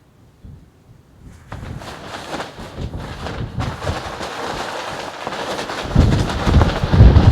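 Wind gusting across the microphone, building from near quiet into heavy low buffeting about six seconds in.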